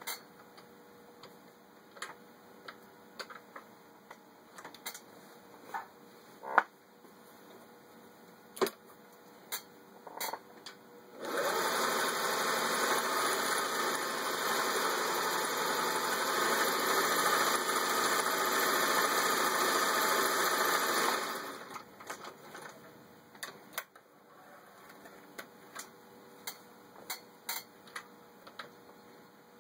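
Vintage Singer 500A Rocketeer sewing machine running steadily for about ten seconds as it stitches one of its built-in patterns, with scattered sharp clicks and knocks from handling the machine before and after the run.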